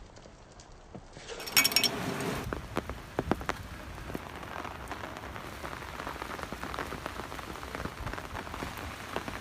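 Steady rain falling, with many individual drops ticking on hard surfaces close by. It is quieter for the first second or so, then turns louder with a short clatter about a second and a half in.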